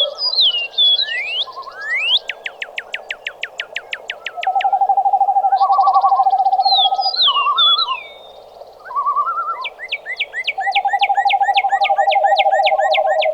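Birds calling at dawn: repeated whistled notes that slide downward, and two fast rattling series of about ten notes a second. Under them, long low trills that pulse evenly for two to three seconds at a time, with short warbled phrases between.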